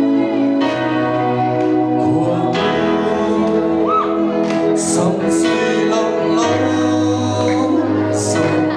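A song on recorded backing music with held chords and bell-like chimes, with a man singing over it into a microphone.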